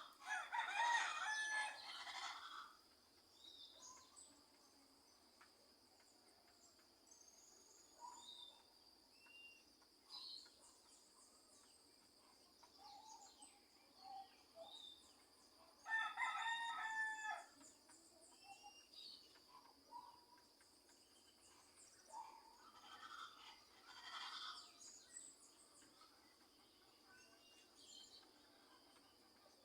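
Roosters crowing at dawn, three long crows with the first the loudest, over a steady high insect drone and scattered small bird chirps.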